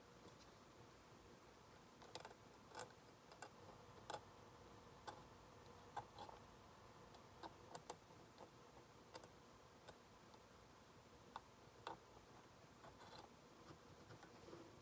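Faint, irregular clicks of a metal dental hand scaler tip working against the plastic teeth of a typodont during scaling practice.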